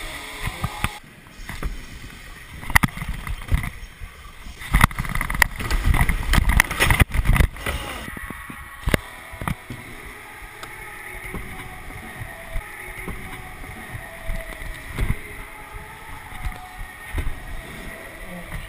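Stunt scooter rolling over wooden skatepark ramps, heard close up from a camera on the rider, with a rolling rumble and repeated knocks and clatter from the wheels and deck on the wood. The knocks are densest about five to eight seconds in, and the rolling is steadier after that.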